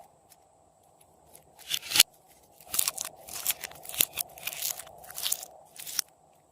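Slime being kneaded and squeezed by hand, crackling and popping: one burst ending in a sharp click about two seconds in, then a quick run of about seven crackly bursts.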